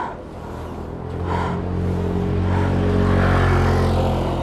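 A motor vehicle's engine running on the road, growing louder over the first three seconds and then easing slightly as it draws near.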